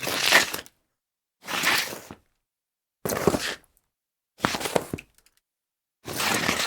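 An object sliding across a tile surface in a series of short separate slides, five in all, each under a second long with a brief silent gap between. Some slides end with a few small clicks or knocks.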